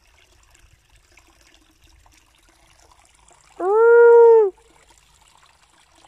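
A single drawn-out, wolf-like howl, just under a second long, about three and a half seconds in, rising slightly and falling away: the cry of a dog that turns out to be injured.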